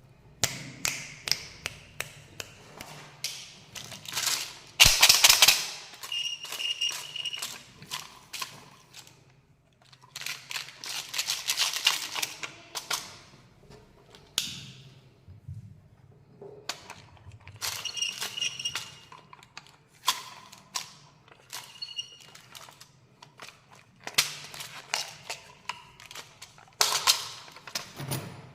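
Hands unwrapping and opening a Kinder Joy egg: bursts of crinkling from the wrapper, with many sharp clicks and taps of plastic.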